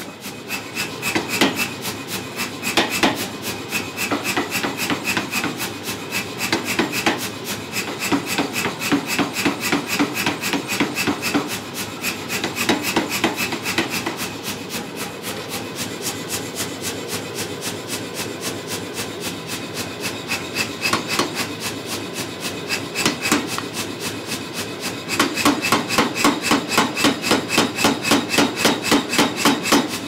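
Power hammer striking a punch into a hot steel bar in rapid, even blows, several a second, to punch a hole through the bar. The blows are loudest for the last few seconds.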